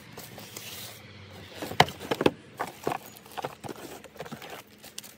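Cardboard packaging being handled: a soft rustle, then a run of irregular sharp taps and knocks as box flaps and packing are moved about.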